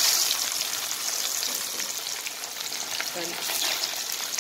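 Pieces of spice-coated red snapper shallow-frying in hot oil in a pan: a steady crackling sizzle with many small pops, loudest in the first moment just after a fresh piece has gone into the oil.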